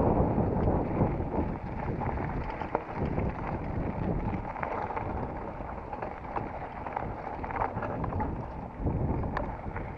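Wind buffeting the microphone during a mountain-bike ride on a dirt trail, with tyre rumble and scattered small clicks and rattles from the bike.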